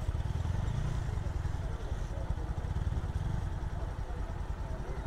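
Motorcycle engine running on the move, with a steady low rumble of wind buffeting the microphone.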